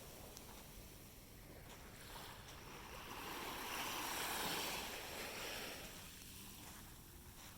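Small waves washing onto a sandy beach: a hiss of surf that swells to a peak about halfway through and then fades.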